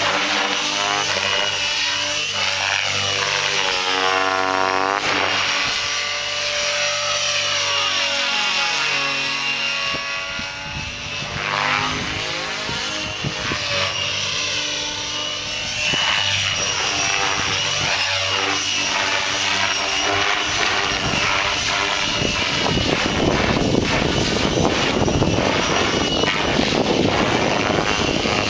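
Electric RC helicopter, a Vibe E-8 with a Scorpion 4035 brushless motor, flying aerobatics: a steady high whine of motor and gears over the rotor blades' whoosh, its pitch sliding up and down again and again as it turns and passes. Over the last several seconds it turns rougher and a little louder.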